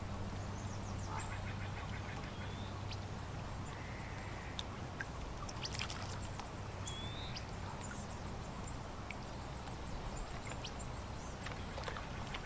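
Water lapping at a lake shore, with ducks quacking and small birds calling now and then. A faint steady low hum runs underneath.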